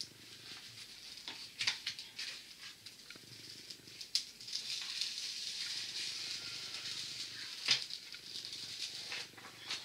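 Diamond-painting canvas being unfolded and handled, its protective plastic-coated sheet rustling and crinkling against the floor, with a few sharp crackles.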